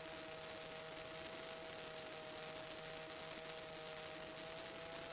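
Faint steady electrical hiss with a thin, steady whine, the background noise of a light aircraft's intercom audio feed with no engine sound coming through.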